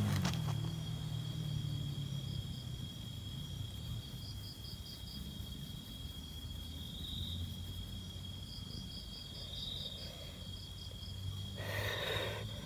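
Crickets chirping: a steady high-pitched ring with pulsed trills that come and go over it. A brief rustle sounds just before the end.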